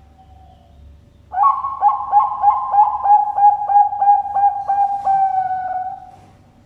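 Bangkok perkutut (zebra dove) cooing its song: about a dozen quick, clipped coos at roughly four a second run straight into one long, drawn-out final coo that fades away.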